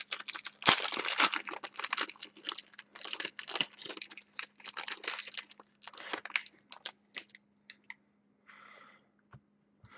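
Foil trading card pack wrapper being torn open and crinkled by hand: a dense run of sharp crackles that thins out to a few scattered rustles toward the end.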